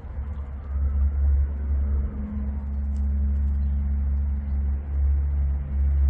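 Deep, steady engine rumble of a nearby motor vehicle, coming in at the start and holding through.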